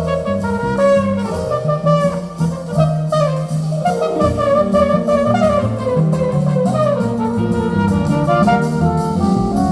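Jazz with brass and drums played back over Cessaro horn loudspeakers in a listening room, heard through the room rather than direct.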